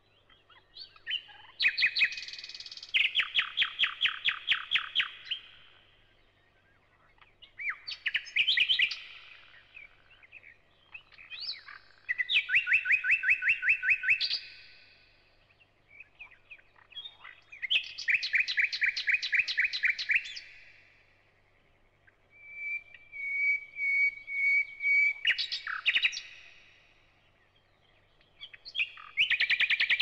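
Thrush nightingale singing: six loud phrases a few seconds apart, most of them fast runs of repeated notes, mixed with clicks and, in one phrase, a whistle held on one pitch.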